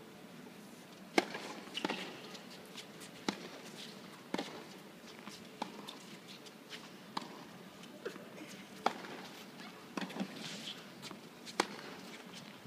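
Tennis ball knocks, racquet strikes and bounces on the hard court, coming about once a second at uneven intervals over the quiet hum of a hushed stadium crowd; the sharpest knock comes about a second in.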